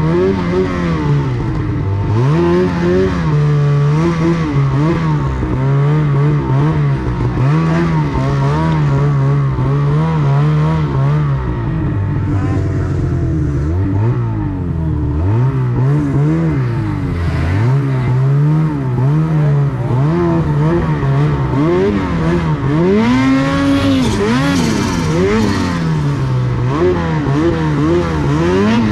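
Snowmobile engine under throttle, its pitch rising and falling again and again as the throttle is worked, holding steady in between, with one sharper high rev about three-quarters of the way through.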